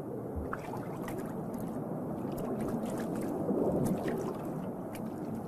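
Underwater water rush of an otter swimming, with scattered bubbly crackles and a swell about two-thirds of the way through.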